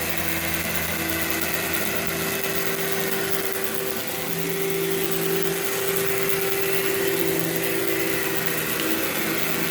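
Workhorse vacuum cleaner running steadily on carpet, its motor giving a constant hum that shifts slightly in pitch about four seconds in.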